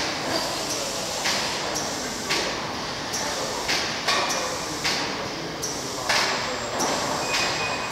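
Overhead transport carriage of an automated greenhouse bench system running along its rails with a bench hanging from it: a steady mechanical running noise broken by repeated rattling clacks, about one or two a second.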